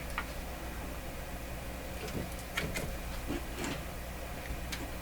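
A few faint clicks and scrapes of small capacitors and their wire leads being handled while they are soldered together, over a steady low hum.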